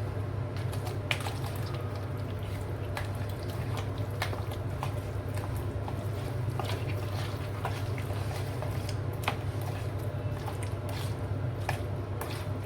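Raw chicken pieces being mixed into a wet yogurt, butter and spice marinade, with scattered small clicks throughout, over a steady low hum.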